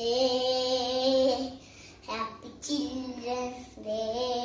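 A young boy singing on his own without accompaniment, holding long drawn-out notes: one phrase of about a second and a half, a short break, then another held phrase.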